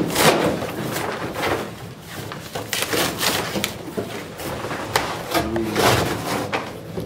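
A boxed reptile rack being unpacked: repeated scraping and rubbing of the packaging against the rack, with a few knocks, in irregular strokes throughout.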